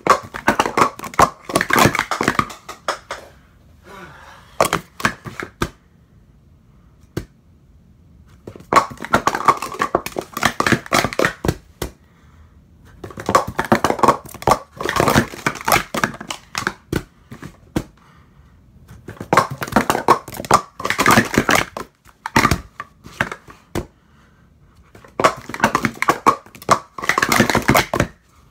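Hard plastic sport-stacking cups (Speed Stacks) clattering rapidly as they are upstacked and downstacked in timed 3-6-3 runs: five bursts of quick clicks about three seconds each, with quieter pauses between them.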